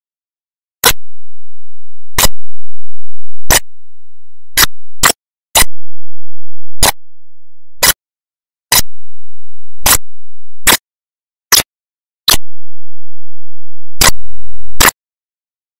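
Sharp, isolated clicks at irregular intervals, about one a second, with dead silence between them.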